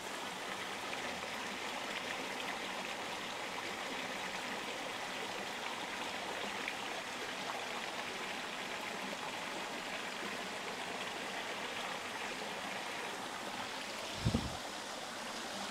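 Steady rushing of a shallow river running over rocks, with one brief low thump about fourteen seconds in.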